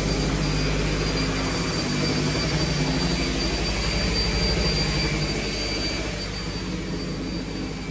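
A corded power tool running steadily as it trims at a door frame, with a steady high whine over the motor. It grows fainter near the end.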